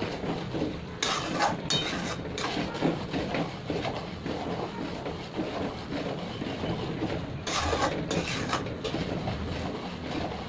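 Steel ladle scraping and clinking against a metal kadhai as malai is stirred while it cooks down into ghee, with the strokes bunched about a second in and again near eight seconds. A steady low rumble and hiss runs underneath.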